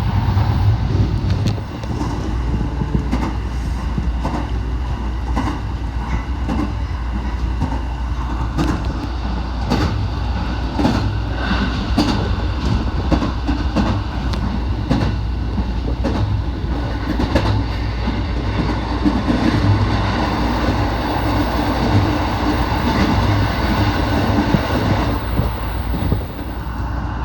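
JR West 207 series electric train heard from inside the car while running: a steady low rumble with scattered clicks of the wheels over the rail joints.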